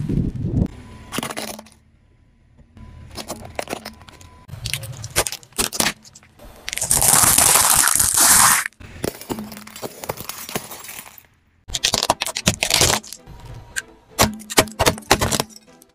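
A car tyre rolling over and crushing a series of foods and objects on asphalt, in separate bursts of cracking and crunching. The loudest burst is a dense crackle lasting nearly two seconds, about seven seconds in.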